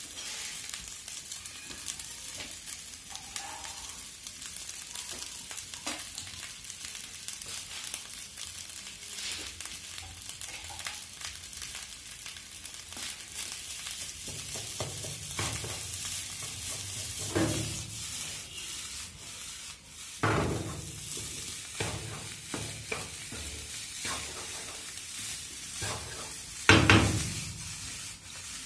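Fried rice sizzling in a frying pan while a wooden spatula stirs and scrapes through it. A few louder scrapes and knocks come in the second half, the loudest near the end.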